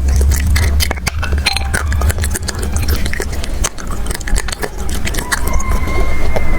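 A knife cutting the ears off a small chocolate bear: many small irregular clicks and clinks of the blade against the chocolate and the surface beneath, over a steady low hum.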